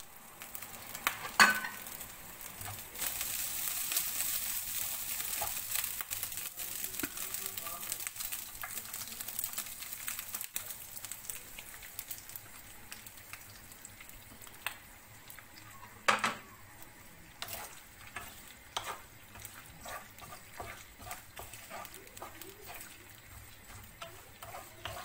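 Food sizzling in a frying pan while it is stirred, the hiss strongest in the first half and dying down later. A utensil knocks sharply against the pan about a second and a half in and again around sixteen seconds, with lighter scraping clicks in between.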